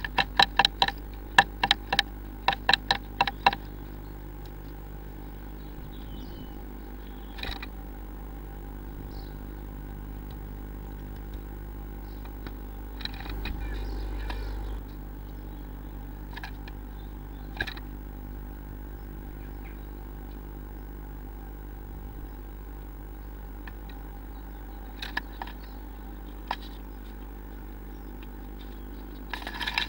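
Blue tit pecking and tapping at the wood inside a nest box: a quick run of sharp knocks that ring in the hollow box, stopping about three and a half seconds in. A steady low electrical hum carries on beneath, with a few faint taps in between and a burst of scrabbling near the end.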